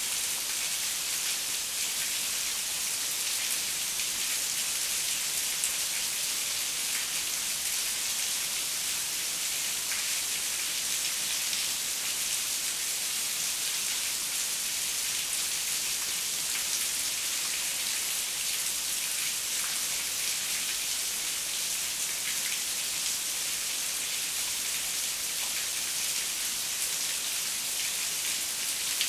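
Heavy rain falling steadily, a dense, even hiss of many drops that holds the same level throughout.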